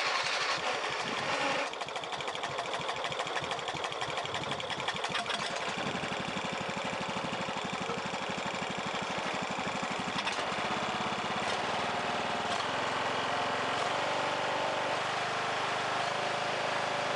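Huskee 14.5 riding mower's engine running steadily just after starting, now on fresh gas with its cleaned carburetor. It eases down slightly about two seconds in and then holds an even run.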